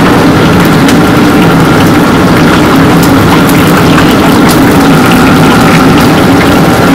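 Battered pieces deep-frying in a wok of hot oil, sizzling with frequent small crackles, over the steady loud roar of a commercial gas wok range.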